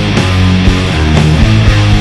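Heavy metal music with no vocals: distorted electric guitar chords over drums hitting a steady beat of about two strokes a second.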